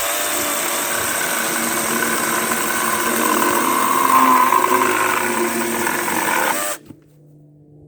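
Harbor Freight Lynx 40-volt cordless 14-inch chainsaw running at full speed and cutting through a hollow oak branch. It is louder about four seconds in while the chain bites, then stops suddenly near the end.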